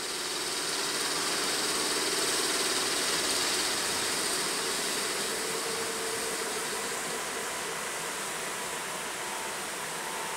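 ET22 electric freight locomotive standing with its auxiliary machinery running: a steady, hissing drone, with a faint high tone coming in near the end.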